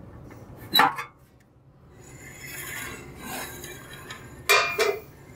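Metal clinks and scraping from an old bandsaw's blade and guide parts being worked by hand: a sharp ringing clink about a second in, a rasping scrape in the middle, and another sharp knock near the end.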